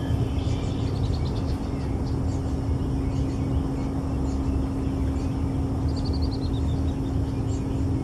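Small birds chirping, with a quick falling trill about six seconds in, over a steady low rumble and a constant hum.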